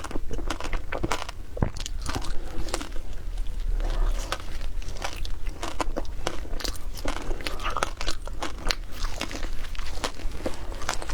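Shaved ice being bitten and chewed: many sharp, irregular crunches following one another without a break.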